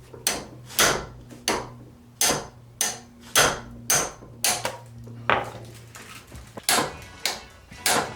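Hammer blows on metal tooling, about two a second with a short pause a little past the middle, striking to shock loose a seized exhaust oxygen sensor.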